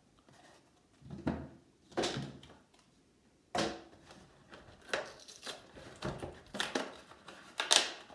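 Stiff plastic blister packaging and cardboard being handled, crinkling and scraping in a string of irregular short bursts, the loudest near the end.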